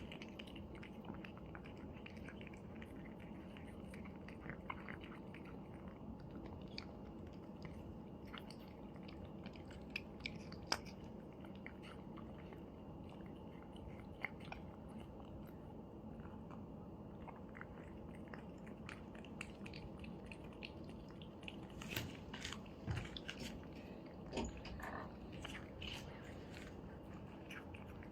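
Cats chewing their food, many small irregular crunching clicks, with a few louder bites near the end.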